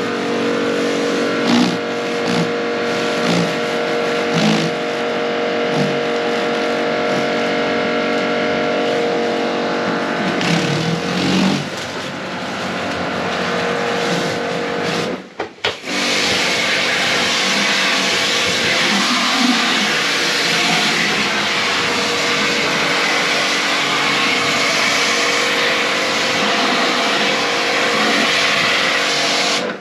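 Pressure washer running steadily: a motor's constant drone under the hiss of the water jet. The sound breaks off briefly about halfway through, and after that the spray hiss is louder.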